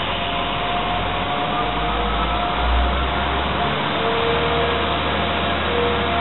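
Class 175 diesel multiple unit pulling slowly into the platform: a steady running rumble with thin high squealing tones held over it as it slows, a new lower tone joining about four seconds in.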